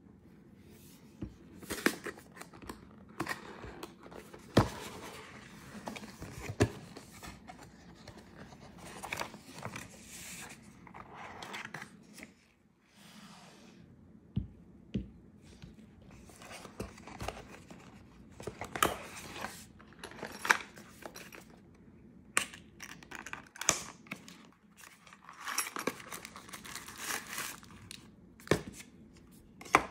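Cardboard packaging being opened and handled, with white paper wrapping rustling and crinkling. Sharp knocks and taps come at irregular intervals as pieces are set down on the table.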